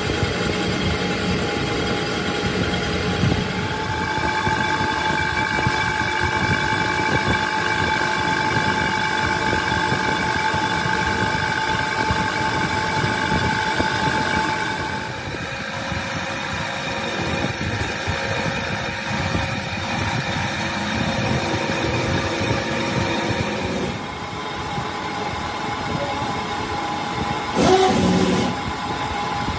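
Belt-driven grinding wheel grinding the face of a spinning truck flywheel on a resurfacing machine: a steady grinding noise with several held tones. The tones shift a few times as the grind goes on, and a louder harsh burst comes near the end.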